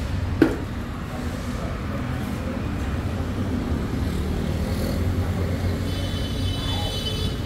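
Street traffic ambience: a steady low rumble of passing vehicles, with a sharp knock about half a second in and a short high-pitched whine near the end.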